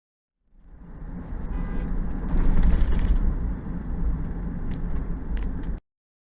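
Road noise from a moving vehicle: a low rumble that builds over the first second and cuts off abruptly near the end, with a few faint clicks.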